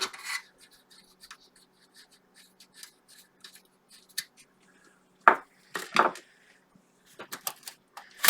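Handling and removal of a 3Com Etherlink III network card from a PC's expansion slot: small clicks and scrapes, with sharp knocks about five and six seconds in and near the end.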